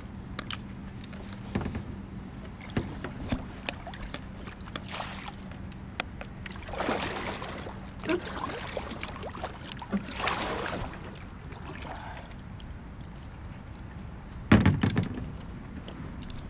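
A 10-foot Pelican kayak being paddled: swishing, dripping paddle strokes in the water that swell up a few times, with small clicks and knocks, and one loud knock near the end.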